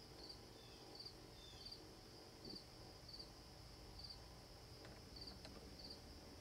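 Faint crickets chirping: short high chirps repeating about every 0.7 s over a steady high insect drone, in otherwise near-silent outdoor ambience.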